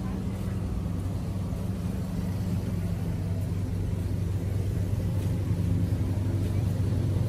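A steady low motor hum, growing a little louder near the end.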